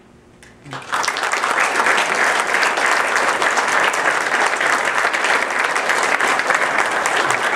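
Audience applauding, starting about a second in and staying steady.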